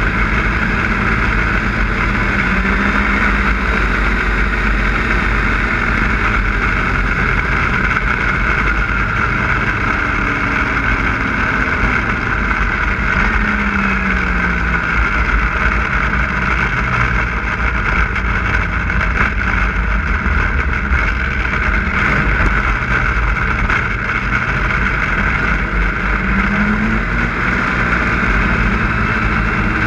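Snowmobile running along at a steady speed. Its engine note slides down and back up a few times as the throttle eases and opens.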